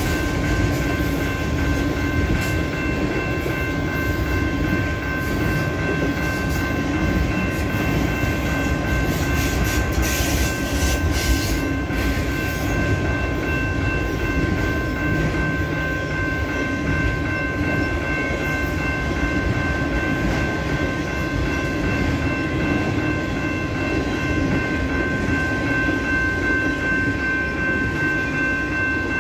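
Freight train of autorack cars rolling past, its steel wheels rumbling and clattering on the rails. A level crossing bell rings steadily over it. A burst of sharper clatter comes about ten seconds in.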